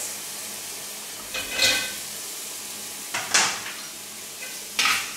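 Shallot and ginger sizzling steadily in hot oil in a sauté pan as sliced carrots are added and stirred, with three short scrapes of a utensil in the pan.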